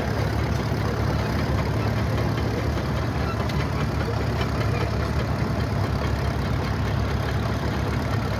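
An engine of heavy equipment running steadily, low and even in pitch, with no change in speed.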